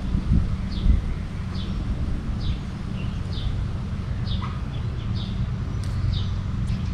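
A bird calling over and over, a short falling chirp about every second, over a steady low rumble.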